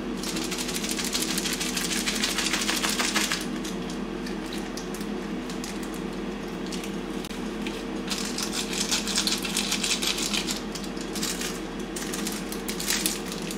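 Instant-ramen seasoning sachets crinkling and rustling as they are handled, torn open and shaken out, in two main bursts of crackle, one early on and one about two-thirds through. A steady low hum runs underneath.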